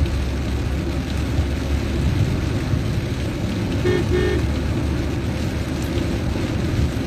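Car driving on a wet road, heard from inside the cabin: a steady engine and tyre rumble, with two short horn toots close together about four seconds in.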